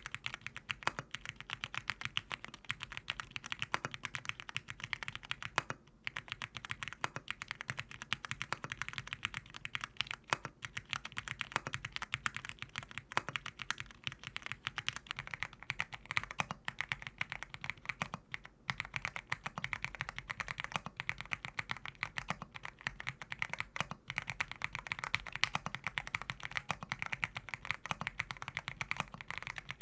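Fast, continuous typing on a 75% mechanical keyboard: a dense run of keystroke clacks with a few brief breaks, one about six seconds in and another a little past the middle.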